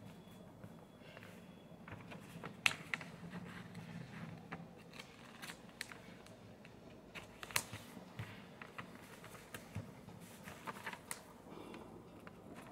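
A sheet of lined notebook paper being folded and creased by hand: faint rustling with scattered short crackles, the sharpest about three seconds in and again past the middle.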